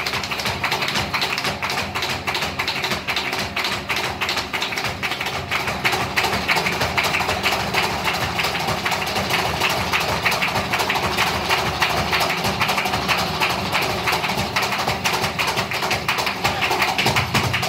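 Flamenco dancer's zapateado footwork: shoes striking the stage in dense, rapid runs of heel and toe beats, with hand-clapping (palmas) alongside.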